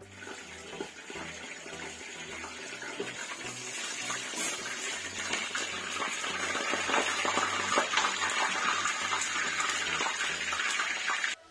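Whole pork leg (pata) deep-frying in hot oil: a steady sizzle full of small crackles that grows louder, then cuts off suddenly near the end.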